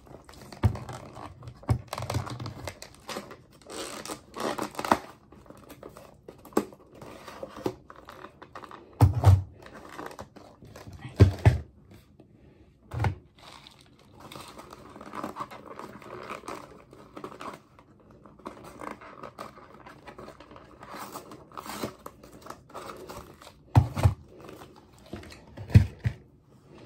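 Paperboard dessert sleeves being torn open and pulled off plastic cups, with paper crinkling, rustling and scraping in irregular spurts. A few dull thumps stand out as the loudest sounds.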